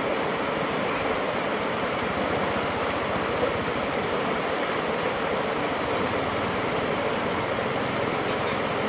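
Muddy river water rushing steadily out through the culverts of a concrete sluice and churning into white water below it.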